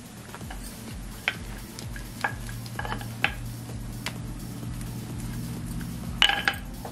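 Scattered sharp clicks and knocks of parotta dough and a wooden rolling pin being worked on a kitchen counter, the loudest near the end as the rolling pin comes into use, over a low steady hum.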